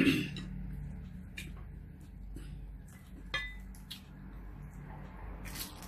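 Scattered light clinks and taps on plates and a ceramic bowl as food is picked up and dipped by hand while eating; a few of the clinks ring briefly.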